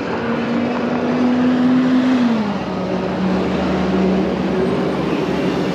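A motor vehicle going by: a steady hum that drops in pitch a little over two seconds in as it passes, over a constant rushing noise.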